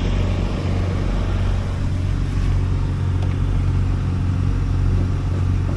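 Construction machine's diesel engine idling steadily, an even low hum.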